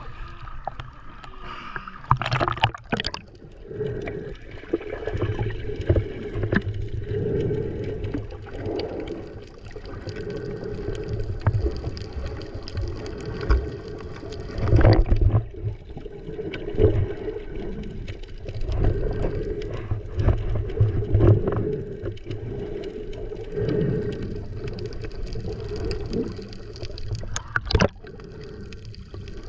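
Muffled water sloshing and gurgling around a camera held in the sea while snorkeling, surging unevenly, with a few sharp knocks or splashes.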